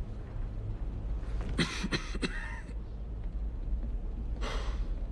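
A man's short cough about a second and a half in, then a sharp breath out near the end, over a steady low hum.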